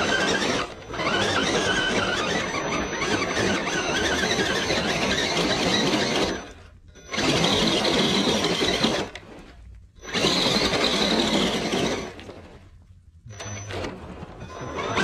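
RC rock crawler's sensored brushless motor and gear drivetrain whining under throttle as it climbs a steep dirt slope, with tyres scrabbling on loose soil. The throttle comes on in bursts, cutting out three times.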